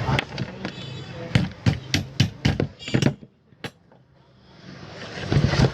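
A quick run of about eight sharp knocks over about two seconds, hard tapping on the fan's parts to free a fastened part during dismantling.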